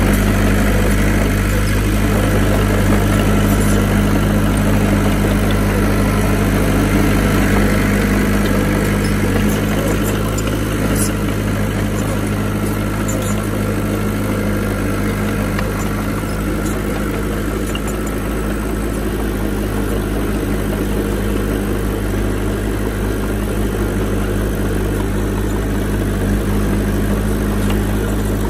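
Heavy diesel engine of earthmoving machinery running steadily at a constant low speed.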